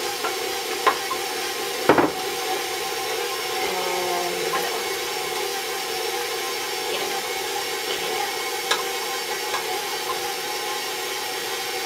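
Stand mixer motor running steadily at low speed, its beater turning through a thick brownie batter. A sharp knock about two seconds in and a few lighter clicks.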